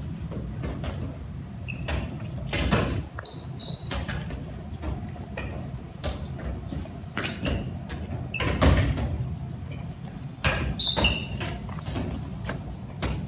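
Badminton racquets tapping inflated balloons upward, several players at once, making irregular knocks over a steady low room rumble. A few short high squeaks come about three seconds in and again near ten seconds.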